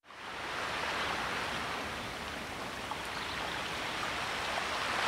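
Ocean surf: a steady wash of breaking waves, fading in at the start.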